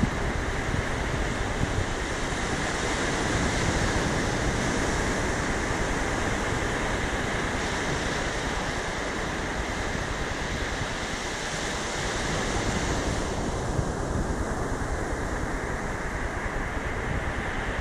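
Ocean surf breaking and washing up a sandy beach, a steady rushing wash that swells and eases with the waves, with wind buffeting the microphone.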